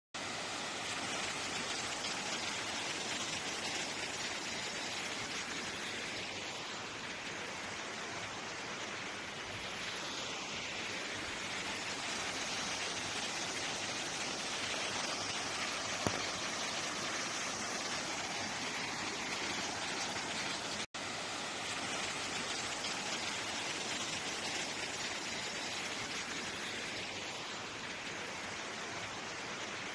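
Steady rush of a swollen mountain stream or torrent running in spate after heavy rain. The sound cuts out for an instant about two-thirds of the way through.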